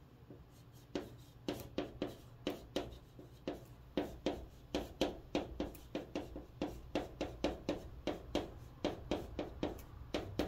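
Chalk writing on a chalkboard: a quick run of short taps and scrapes, about three strokes a second, as Korean letters are written. It starts about a second in.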